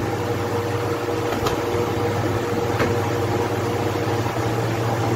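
Evaporative room air cooler's fan running with a steady hum and rush of air, with a few light knocks.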